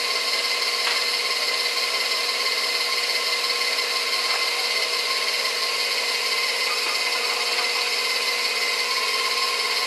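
Electric stand mixer's motor running steadily with a constant whine, kneading bread dough.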